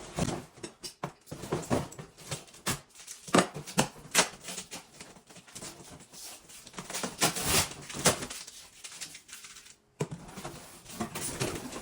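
Shipping packaging and shoe boxes being handled and opened: a quick run of irregular rustles, crinkles and light knocks, with a brief gap near the end.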